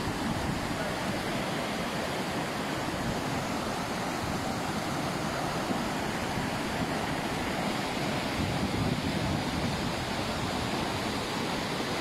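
Muddy flash-flood water rushing steadily past in a broad torrent.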